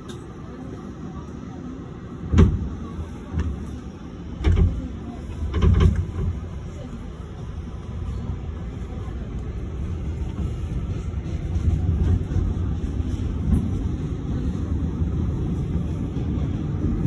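New York subway train on the elevated 7 line, heard from inside the car, pulling out of a station: a few heavy clunks in the first six seconds, then a low rumble of wheels on the rails that grows steadily louder as it picks up speed.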